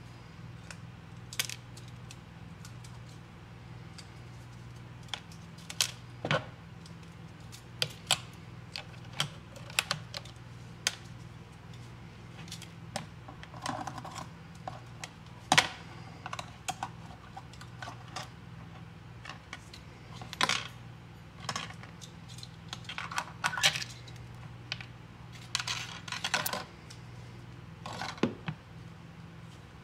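Pliers snipping and pulling rusted wire off a heavily encrusted toy cap gun: irregular sharp clicks and snaps, some in short scraping runs, with small bits of crust dropping into a plastic tub. A steady low hum sits underneath.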